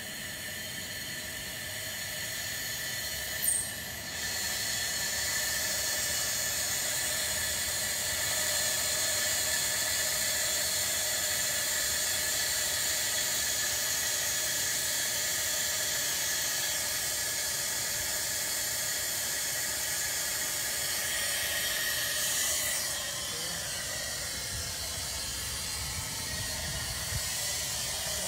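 Compressed gas hissing steadily through a cylinder valve, with several steady whistling tones, as helium is fed into a high-altitude balloon. A brief knock comes about three seconds in, and the hiss eases off a few seconds before the end.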